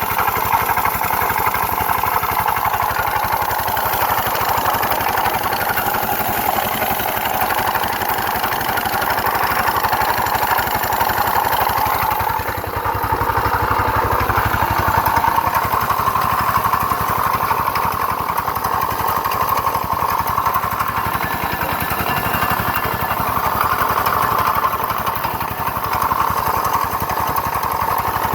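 GY6 scooter's four-stroke single-cylinder engine running with a grinding noise. The owner suspects a failing variator or crank bearing.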